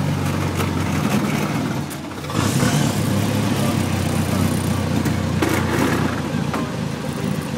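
Brasier Brooklands record car's engine running. It dips briefly about two seconds in, then comes back louder and rougher as it is opened up.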